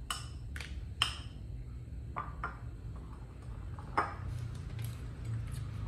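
Cutlery clinking against a dish, about six light clinks at uneven intervals, the loudest about one second and four seconds in, over a low steady hum.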